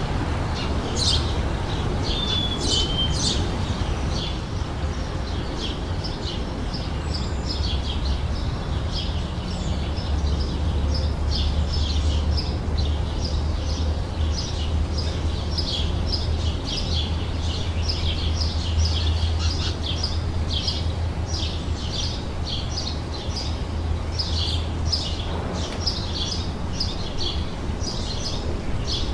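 Songbirds chirping and twittering continuously in short, quick calls, over a steady low rumble.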